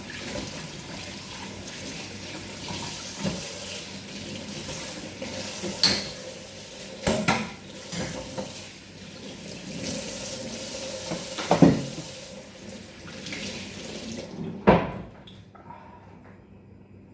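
Water running from a tap, with clinks and knocks of dishes and utensils being rinsed. The water shuts off near the end, and one last knock follows.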